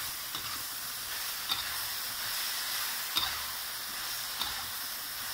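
Sliced pork and julienned carrots sizzling in oil in a wok, stirred with a spatula, with a few sharp clicks of the spatula against the wok.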